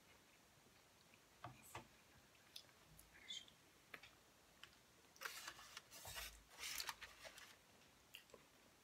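Quiet eating sounds of sushi rolls: scattered light clicks of wooden chopsticks and soft chewing, with a louder cluster of crackly rustling about five to seven and a half seconds in.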